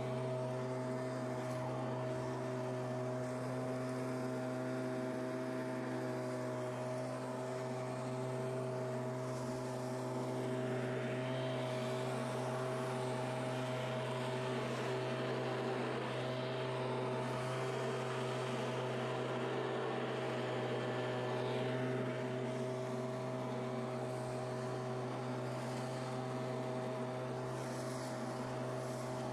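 Stihl two-stroke leaf blower running steadily, its engine and fan whine holding one pitch while it blows dry leaves. The rush of air grows louder through the middle stretch.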